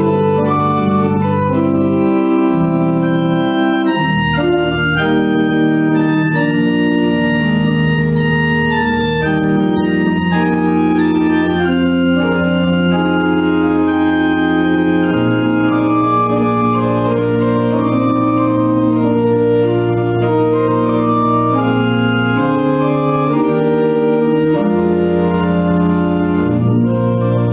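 Organ playing a slow prelude of sustained, held chords over long bass notes that shift every few seconds.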